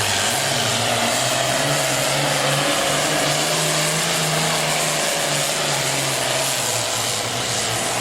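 Super Farm class pulling tractor's diesel engine running loud and steady, its pitch wavering slightly.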